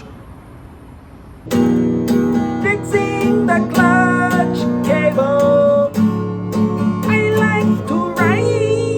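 Acoustic guitar music starts about a second and a half in, with strummed chords and a melody line that bends in pitch.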